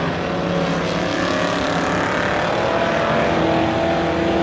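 Several stock car engines running hard together as the field races around a short oval track. One engine note climbs a little in the second half.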